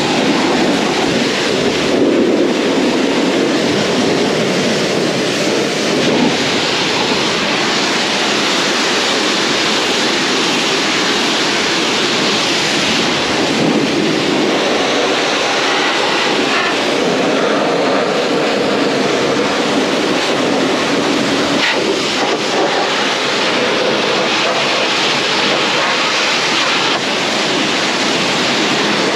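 High-pressure jet cleaning dirt out: a steady, loud rushing hiss that starts abruptly and cuts off near the end.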